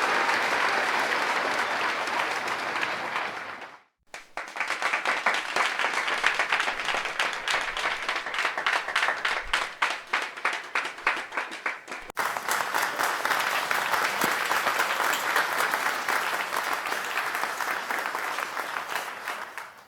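A string of recorded audience applause. The first burst fades out about four seconds in. After a short gap, a new round of clapping starts in which single claps stand out. About twelve seconds in it cuts suddenly to a fuller, denser applause that fades away at the end.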